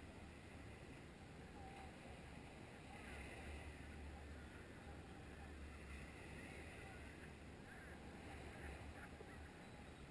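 Near silence: faint beach ambience, a low rumble of wind and distant surf.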